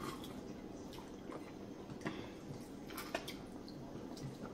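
Soup being sipped from a bowl: faint wet slurping sounds with a few small, sharp ticks about two and three seconds in.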